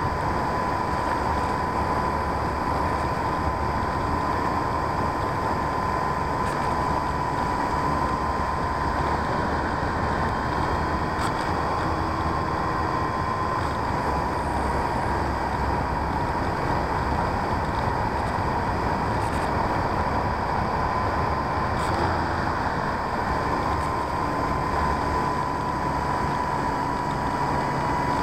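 Onboard sound of a radio-controlled P-51D Mustang model in flight: the motor and propeller whine at a nearly constant high pitch under a steady rush of wind noise.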